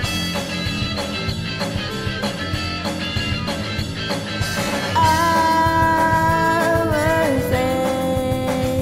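A rock-style song cover with singing over guitar backing. About five seconds in it grows louder, with a long held note that bends near the end.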